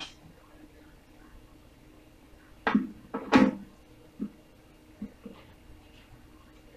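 Short dull knocks of banana pieces dropping into a plastic blender jar: two loud ones close together about three seconds in, then a few softer ones, and another sharp one at the end.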